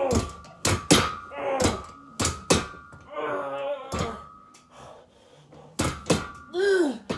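Plate-loaded leg-curl attachment of a weight bench thunking and knocking on each fast rep of hamstring curls, with strained grunts of effort between the knocks. The reps stop for a short lull about four seconds in, then start again.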